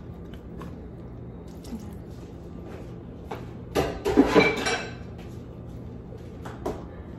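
Spatula scraping and tapping in a frying pan of vegetables being stirred, with a louder clatter of clinking utensils about four seconds in, over a low steady hum.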